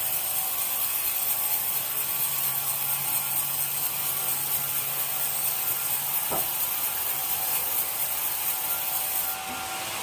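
Sawmill saw cutting through wood: a steady, hissing saw noise, with a single click about six seconds in and a slight drop in loudness near the end.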